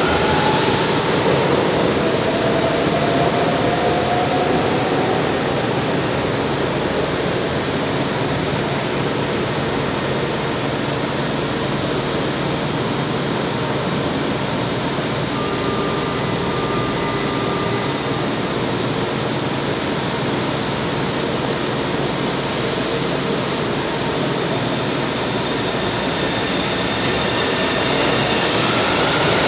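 São Paulo Metro train running through an underground station: a loud, steady rumble, with an electric traction-motor whine rising in pitch a couple of seconds in.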